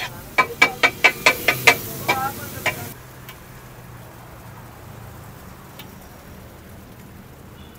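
Metal spatulas clanking against a hot iron tawa in a quick run of about ten ringing strikes, then frying food sizzling steadily on the griddle.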